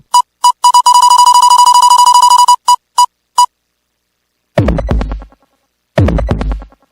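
CR Jabu Jabu Beat pachinko machine's electronic sound effects: a few short single-pitched beeps, a fast run of beeps lasting about two seconds, and three more beeps. After a short silence come two falling-pitch sweeps, each with a low thud.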